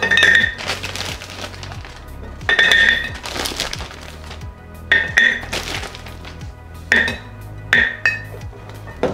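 Frozen green Kojo ume plums dropped by hand into a large glass jar, each landing with a ringing glass clink, about six times at irregular intervals, over background music.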